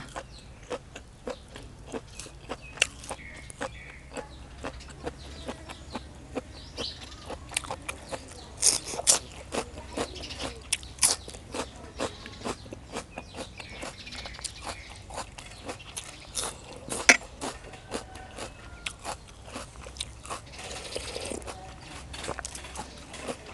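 Close-miked chewing of crisp raw water lily stem and beef tripe salad: a quick, irregular run of crunches and wet mouth clicks, with a few louder crunches.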